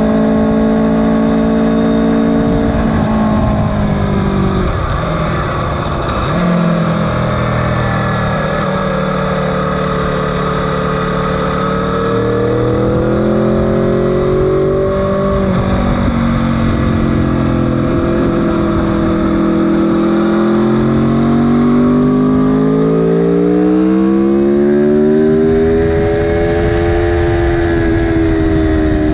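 Aprilia sport motorcycle engine heard onboard at race pace: its pitch drops a few seconds in as the rider slows and shifts down for a corner, climbs and falls again in the middle, then rises strongly near the end under hard acceleration. Steady wind rush over the microphone runs underneath.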